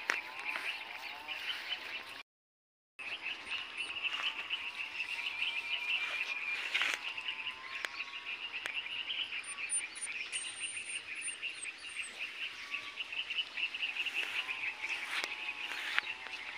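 A chorus of frogs calling from a pond, a dense steady trilling, with a few short high bird chirps around the middle. The sound cuts out for a moment about two seconds in.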